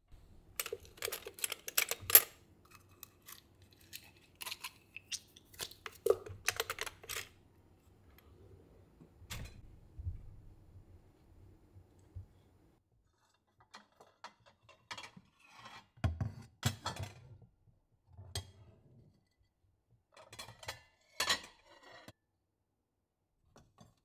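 Household handling sounds: cutlery clattering and rattling in a drawer, then a few dull knocks about two-thirds through, and ceramic plates and bowls clinking as they are moved in a cupboard near the end.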